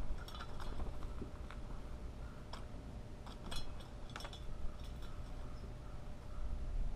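Blue jay landing on and clinging to a metal tube bird feeder, its claws and beak making scattered light clinks and taps on the feeder as it pecks at the seed.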